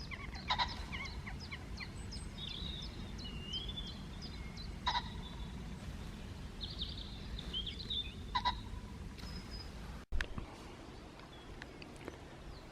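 Small birds singing and calling, with quick high chirps and warbling phrases, over a steady low rumble of outdoor background noise. The sound breaks off for an instant about ten seconds in.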